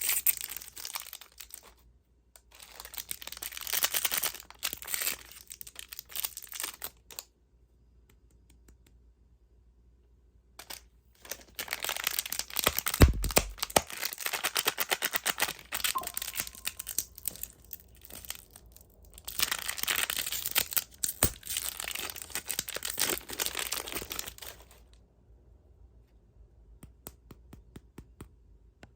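Plastic candy wrappers crinkling and tearing open in several long stretches of dense crackle, with quiet pauses between them. A single sharp knock sounds about midway through.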